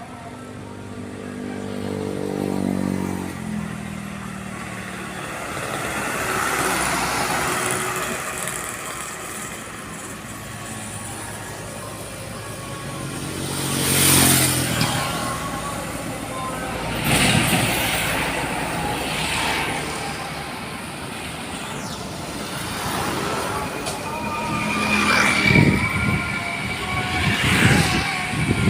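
Heavy vehicles passing on a busy highway, their engine and tyre noise swelling and fading as each goes by, loudest about halfway through and again near the end. A horn of several tones is held for about three seconds at the start and drops in pitch.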